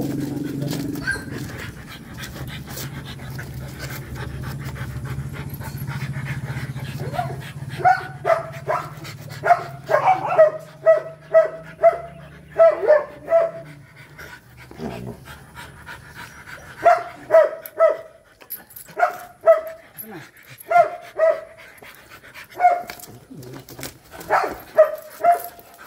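Rottweilers mating, with a dog making short, pitched, panting whines in quick runs of about two a second, broken by pauses. For the first several seconds a low steady hum lies underneath.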